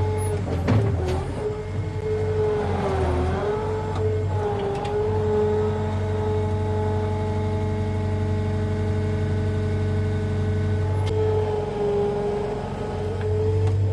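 Skid steer engine running steadily while the front hoe digs, its pitch dipping briefly twice as it comes under load, with a couple of sharp knocks near the start.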